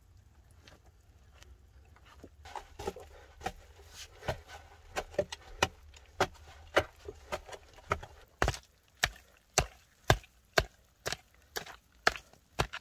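A pick striking stony earth over and over: lighter, scattered blows at first, then steady, harder strikes about twice a second.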